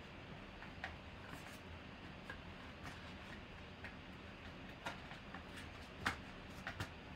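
Faint scattered clicks and taps of fingers handling a cardboard trading-card box, with one sharper tick about six seconds in.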